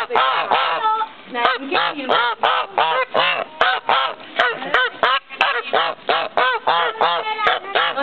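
Two Canada goose × European goose hybrids honking at close range, a rapid run of short honks about three or four a second.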